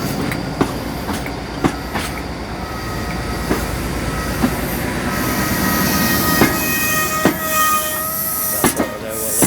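Class 57 diesel locomotive 57312 running under load, with high whistling tones that strengthen about halfway through and irregular sharp clicks of wheels over rail joints.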